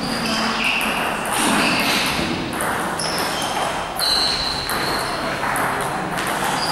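Table tennis rally: the ball knocking back and forth off the paddles and the table, about one sharp hit every half second or so, each with a short high ring.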